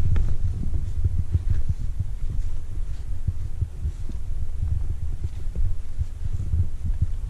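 Wind buffeting the microphone in a low, uneven rumble, with a few faint clicks over it.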